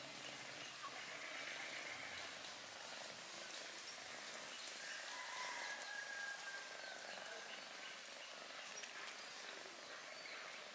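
Faint outdoor ambience: a steady hiss, with a few faint, drawn-out high calls, one about a second in and a longer one around the middle.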